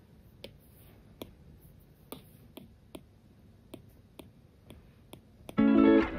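A stylus tip tapping on an iPad Pro's glass screen: quiet, sharp clicks, about one or two a second. Near the end, louder plucked acoustic guitar music starts.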